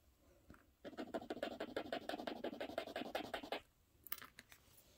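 Rapid back-and-forth scratching of a shell earring on a black jeweler's touchstone, about ten strokes a second for nearly three seconds, starting about a second in. A light click follows shortly after it stops.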